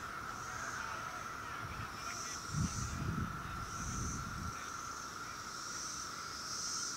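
A steady, unbroken droning chorus of insects, with a higher buzzing that swells and fades every second or two.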